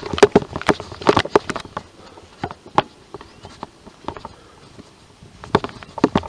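Quick, irregular clicks and knocks from Nerf blasters in play, thick in the first second and a half, sparser in the middle and picking up again near the end.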